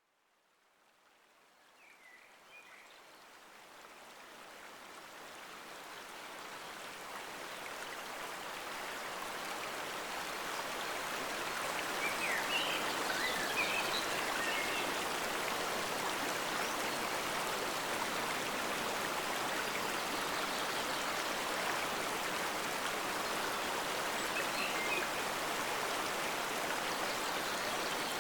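Flowing stream water, a steady rushing that fades in from silence over the first dozen seconds and then holds steady.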